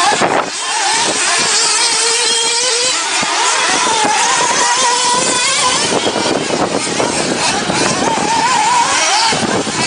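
Small electric motors of remote-control off-road cars whining, the pitch wavering up and down as they speed up and slow down, over a steady rushing noise.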